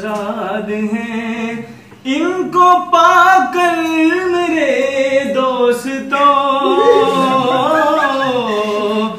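A young man singing unaccompanied in ghazal style. A held note ends just under two seconds in, and after a short breath he sings a new line, richly ornamented, with the pitch sliding up and down.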